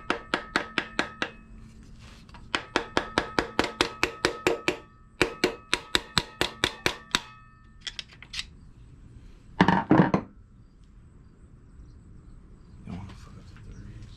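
A hammer tapping on a metal engine part to drive it out: quick ringing metallic strikes, about five a second, in three runs with short pauses. About ten seconds in there is one louder, heavier clatter.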